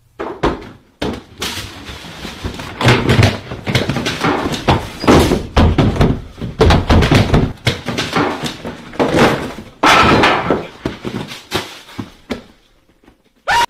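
Cartoon sound effects: a fast, irregular run of loud thuds, bangs and crashes, things knocked about and slammed, with one sharp hit near the end.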